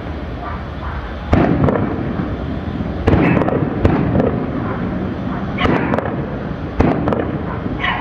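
Aerial fireworks bursting: a string of sharp bangs, a big one every second or two with smaller cracks between, each trailing off in an echoing rumble.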